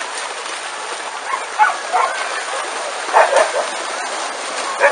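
Dogs, many of them huskies, barking several times in short yelps, the loudest a few quick barks about three seconds in, over a steady din of splashing water and a crowd.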